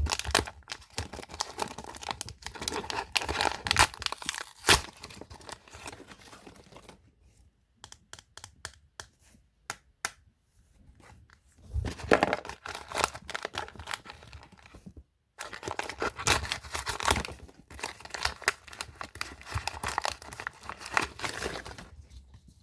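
Toy packaging being torn open and crinkled by hand, in three spells of rustling and tearing with scattered small clicks between them.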